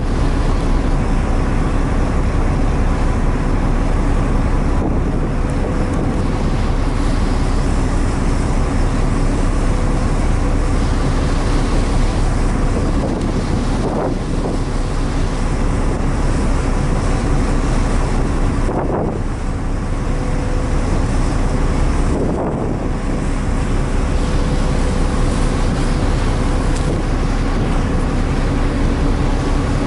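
The ferry Mishima's engines droning steadily under the rush of water along the hull and wind buffeting the microphone on the open deck. The sound is broken briefly three times in the second half.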